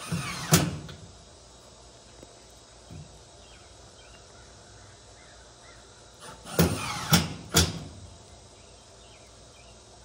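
Cordless drill driving screws through a ribbed metal roofing panel: a short burst in the first second, then another about six and a half seconds in with three sharp, loud peaks against the metal.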